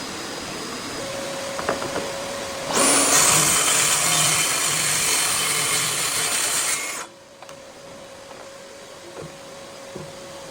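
A power tool working wood. It makes a lower, rougher sound at first, then runs loudly and steadily for about four seconds and cuts off suddenly. A faint steady hum is left.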